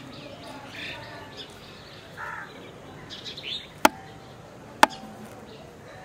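Birds chirping and calling in short scattered notes, with two sharp clicks about a second apart a little past the middle, each ringing briefly.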